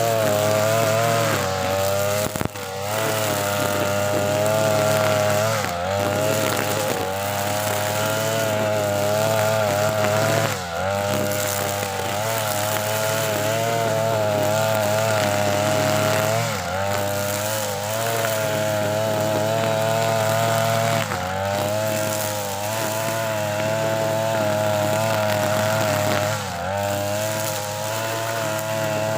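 TB43 two-stroke brush cutter with a nylon trimmer head running at full throttle through thick grass. The engine note dips briefly every few seconds as the head bogs down in the grass, then recovers.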